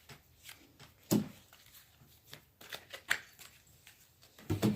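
Tarot cards being shuffled and handled: a run of soft flicks and riffles, with sharper card snaps about a second in and about three seconds in.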